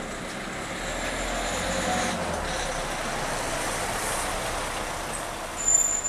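Road traffic, a vehicle passing in the street: its engine and tyre noise swell up and die away. Near the end there is a short loud peak with a high thin squeal.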